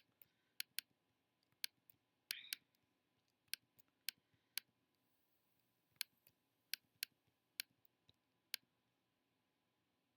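Computer mouse buttons clicking: single sharp clicks at irregular intervals, about fifteen in all, some in close pairs, with a longer gap near the end.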